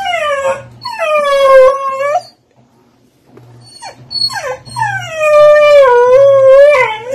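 Dog howling. A short falling howl and a longer held one come first, then a pause. After a few brief yips comes one long howl that glides down, holds for a couple of seconds and lifts at the end.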